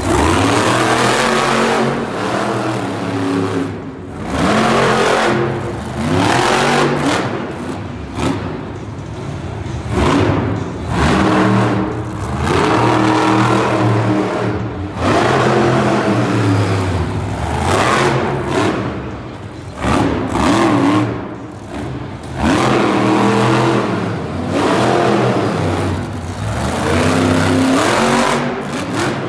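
Megalodon monster truck's supercharged methanol-burning V8 revving hard in repeated bursts, its pitch climbing and dropping every couple of seconds as the throttle is worked through stunts.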